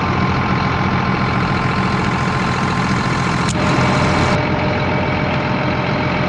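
John Deere 7810 tractor's diesel engine idling steadily, with a single sharp click about halfway through.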